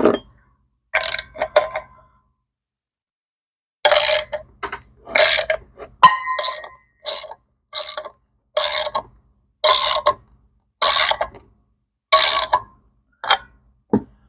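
Hand tool working on metal parts of a motorcycle clutch and flywheel assembly: short, rasping metallic strokes with a slight ring, repeated about once a second, with two early strokes, a pause, then a steady run of strokes.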